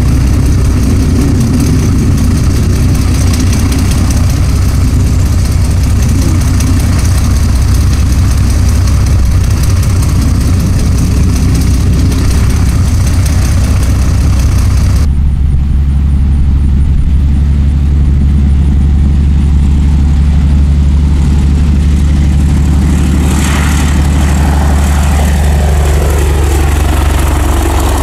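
Fokker D.VII biplane's piston aero engine running steadily at low power on the ground. Partway through, the sound changes abruptly to a steadier, lower engine note. Near the end the engine note sweeps and falls in pitch as the aircraft passes low overhead.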